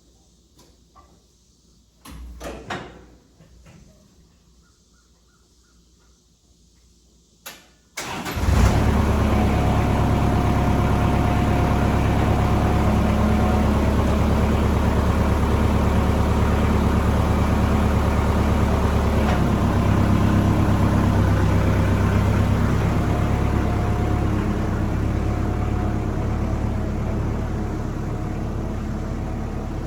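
A few knocks and a click, then an engine starts abruptly about eight seconds in and runs steadily at idle, easing off slightly toward the end.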